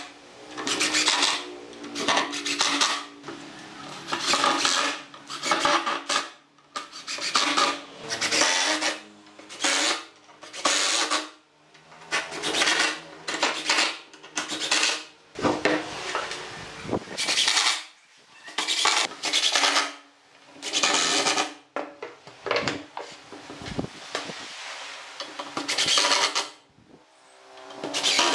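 Makita cordless impact driver driving screws into a wooden frame, in many short bursts of about a second each with brief pauses between.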